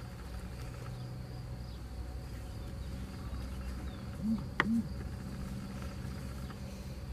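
Flies buzzing steadily in a paddock. About four seconds in, a fly passes close twice with a rise and fall in pitch, and a sharp click falls between the two passes.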